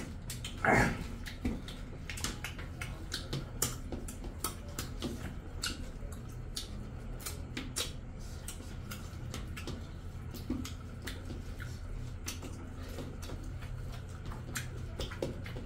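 Close-up eating sounds: hand-eating of rice and chicken curry from steel plates, with many small wet clicks and smacks of chewing and fingers working the food against the metal. A short vocal sound comes under a second in, over a steady low hum.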